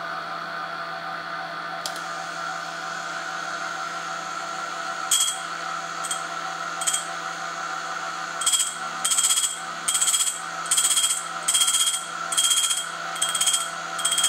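Small motors running steadily: a sewing-machine servo motor spinning a 400-grit diamond wheel and a little TT gear motor turning a broken carbide drill bit. About five seconds in the carbide starts touching the wheel, and from about eight seconds in it grinds in a regular scratchy rasp a little more than once a second as the off-centre tip is hand-fed into the wheel and re-ground.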